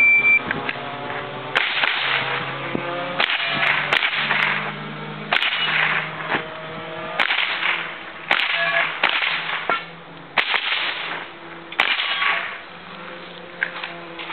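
A shot-timer start beep, then a string of .22 LR rifle shots at uneven intervals of roughly a second, each sharp crack trailing off in a short hiss.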